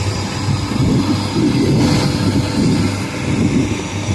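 Rice combine harvester running and cutting its way into standing rice: a steady low engine hum under a rough mechanical clatter that grows louder through the middle.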